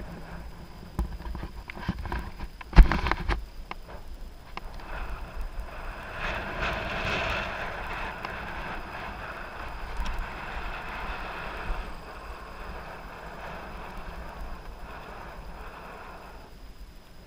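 2018 Giant Anthem Advanced 1 mountain bike ridden along a dirt singletrack: scattered rattles and knocks from the bike over trail bumps, the loudest a sharp knock about three seconds in. Then a rushing hiss of tyres and wind for several seconds that fades toward the end.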